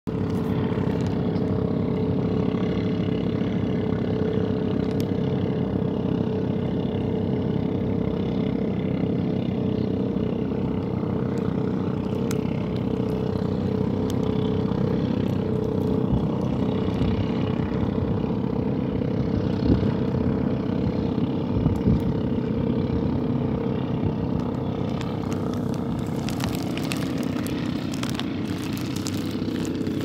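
An engine running steadily with an even pitched hum, with a few light clicks near the end.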